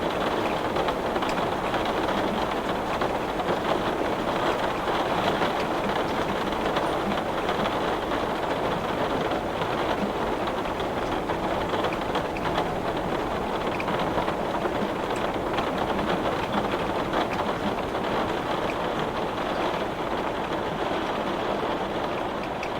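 Heavy rain beating steadily on window glass, a dense even patter with faint scattered drop ticks.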